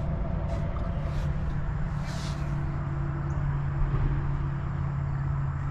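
A steady low mechanical hum at a constant pitch, from a motor or engine running steadily in the background.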